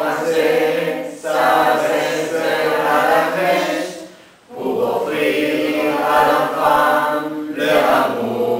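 A small mixed choir of men's and women's voices singing a French Christmas song without accompaniment, with the lines "les étudiants de français… pour offrir à l'enfant, et leur tendresse". There is a brief pause for breath about four seconds in.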